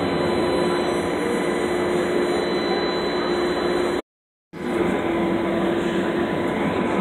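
Steady running noise heard inside a moving streetcar: a constant hum over a rolling rumble, broken by a half-second gap of silence about four seconds in.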